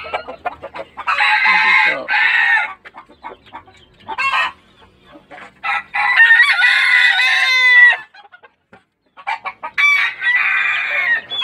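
Gamecock roosters crowing, four crows in turn. The longest and loudest, about six seconds in, lasts about two seconds and falls in pitch at the end.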